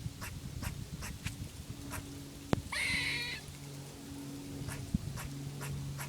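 A squirrel calling: a run of short, sharp chucks at about two a second, with one louder, longer squealing call about three seconds in.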